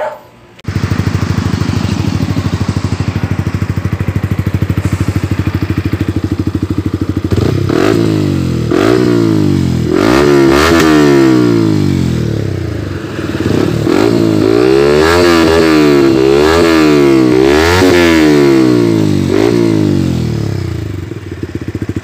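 Yamaha MT-15's single-cylinder engine, fitted with an aftermarket 'M1 Akra' full exhaust. It idles with an even, rapid beat, then from about seven seconds in is revved over and over in quick throttle blips, each rising and falling in pitch.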